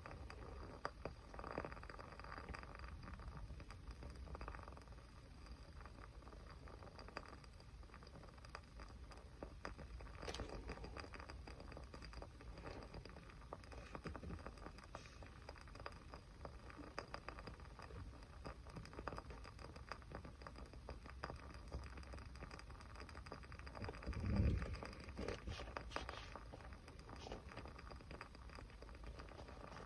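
Small fire crackling quietly, with scattered soft pops and ticks. A soft low thump about 24 seconds in.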